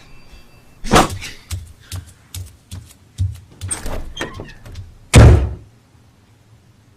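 A series of separate thumps and knocks, irregularly spaced, with the loudest thump about five seconds in.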